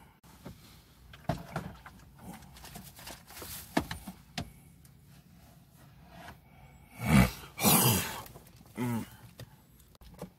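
Handling noises inside a car: scattered light taps and clicks, then a louder rustle with a low thump about seven seconds in and another just after.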